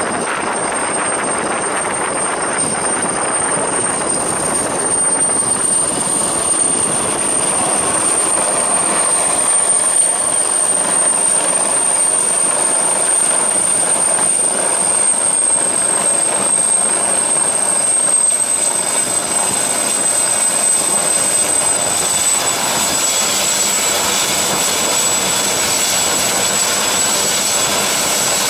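Helicopter coming in over the sea and setting down on an offshore rig's helideck, its turbine engines whining high over a steady rush of rotor noise. The whine steps down slightly in pitch twice in the second half, after it has settled on the deck with its rotors still turning.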